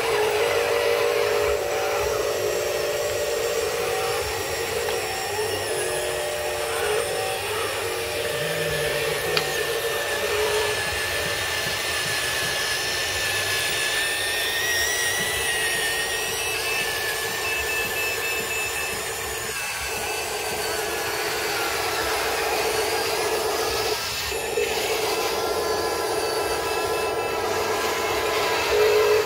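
Electric drive motors and gearboxes of Huina radio-controlled construction models, a wheel loader and a tracked excavator, whining steadily as they drive and work the dirt, with a higher whine that wavers in pitch through the middle.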